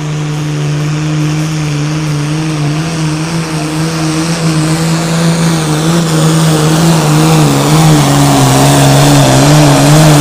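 Diesel engine of an IHC pulling tractor running flat out at steady high revs under load during a pull, growing louder; its pitch dips slightly in the second half.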